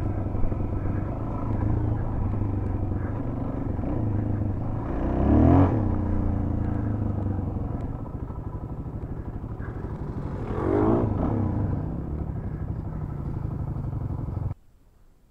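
Suzuki DR-Z400 dual-sport's single-cylinder four-stroke engine running at low throttle, revving up briefly about five seconds in and again about eleven seconds in. It cuts off abruptly near the end.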